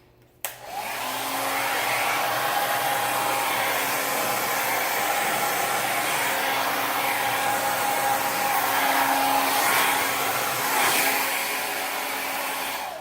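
Hair dryer switched on with a click about half a second in, running steadily as a rush of air with a faint hum, then switched off just before the end.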